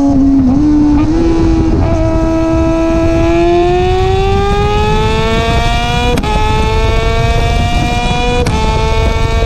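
2021 Kawasaki ZX-6R's 636 cc inline-four running through an M4 exhaust, heard close to the pipe while riding: the engine note holds steady, then climbs as the bike accelerates. About six and again about eight and a half seconds in, a quick-shifter upshift makes a brief sharp cut and a small drop in pitch, with wind rush underneath.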